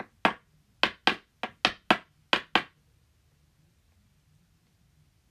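A run of about eight sharp, hard knocks in under three seconds, then quiet: a stuck bottle being rapped on a tabletop to loosen its cap.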